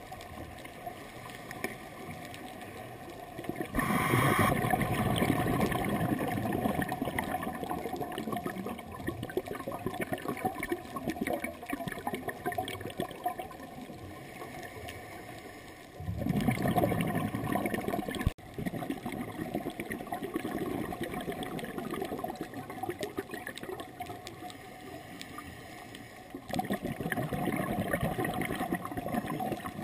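A scuba diver breathing, heard underwater: exhaled bubbles from the regulator rush and gurgle in three surges of a few seconds each, about ten to twelve seconds apart, with quieter steady water noise between them.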